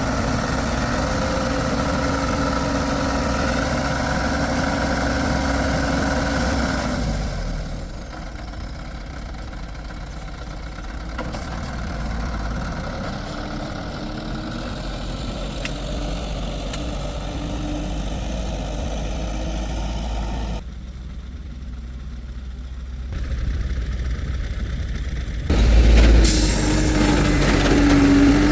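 A heavy vehicle's engine running steadily, its sound and level changing abruptly several times.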